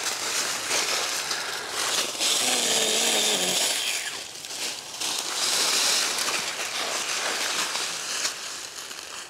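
Small Stihl 4-inch battery pruning saw cutting saplings and brush, its chain running in bursts, loudest about two seconds in and again about five seconds in.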